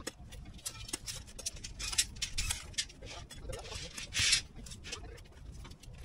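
Faint job-site sound from a crew tying rebar on a slab grid: scattered light clicks and taps over a low steady rumble, with faint voices and a short hiss about four seconds in.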